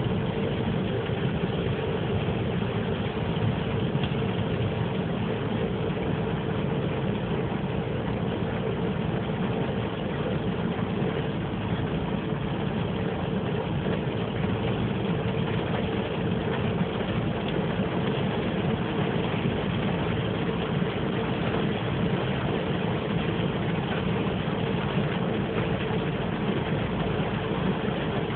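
Steady noise inside a car's cabin: the car's engine running with a constant hum, mixed with an even hiss of rain on the car.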